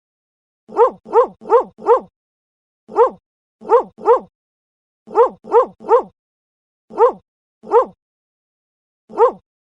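Dog barking: thirteen short, alike barks in quick runs of four, three, three, two and then one, with dead silence between the runs.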